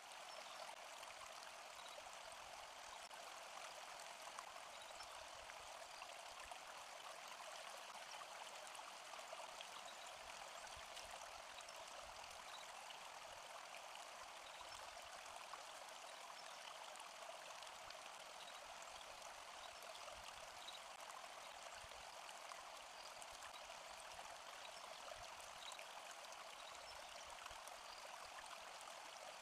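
Faint, steady rushing noise, like running water, with no breaks or changes.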